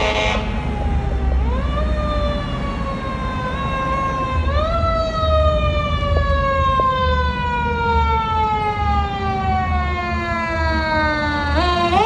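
Fire engine siren wailing as the engine approaches. The pitch climbs quickly about a second and a half in, again about four and a half seconds in, and just before the end. Between the climbs it falls slowly, the longest fall lasting about seven seconds. A low engine rumble runs beneath it.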